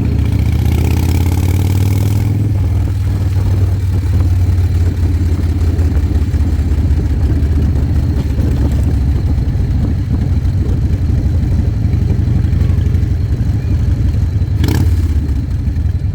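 Harley-Davidson V-twin motorcycle engine running steadily on the move, a low pulsing rumble. There is a hiss in the first couple of seconds and a brief sharp noise near the end.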